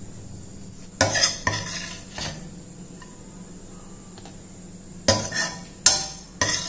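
Steel spoon scraping and clinking against a stainless steel frying pan as stir-fried cabbage and carrot are scooped out: a cluster of sharp scrapes about a second in and another near the end.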